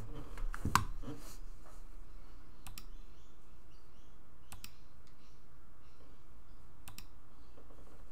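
A handful of sharp computer clicks, spaced about two seconds apart, some in quick pairs, the loudest about a second in, over a faint steady low hum.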